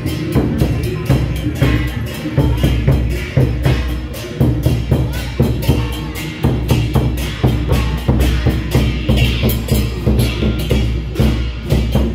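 Street procession percussion band playing a steady, fast beat of drums and clacking percussion, about four strokes a second, with heavy low drum hits.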